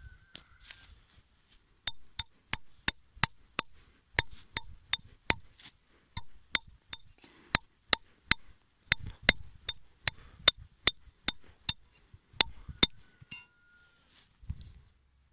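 Hammer blows on a metal stake, driving it into the ground to anchor a foothold trap's chain. About thirty sharp ringing metallic clinks come in bursts of about three a second, starting about two seconds in and stopping shortly before the end.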